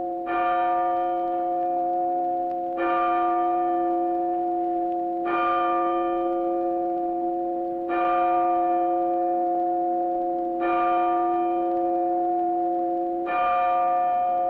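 A bell tolling slowly, struck about every two and a half seconds, with a steady low hum that carries on between the strokes.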